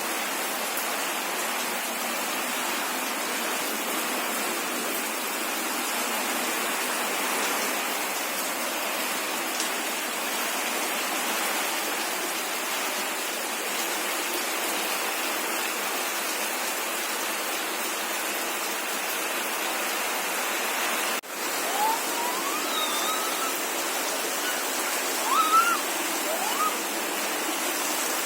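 Steady hiss of heavy rain falling. About three-quarters of the way through there is a sudden click and brief drop, then a young child's high voice gives a few short, gliding cries over the rain.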